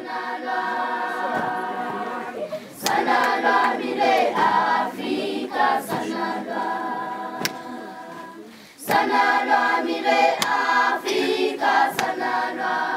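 A group of schoolchildren singing together in chorus, unaccompanied, in sustained phrases. A few sharp hits cut through the singing.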